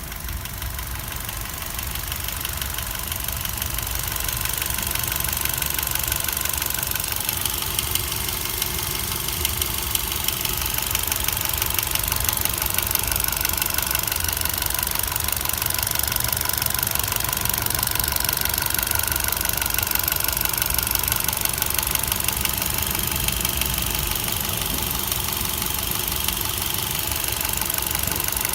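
2016 Kia Picanto's 1.2-litre Kappa engine running steadily with a fast, even ticking over the engine note. This is the unexplained tick the owner is asking about on a car with only 31,000 km.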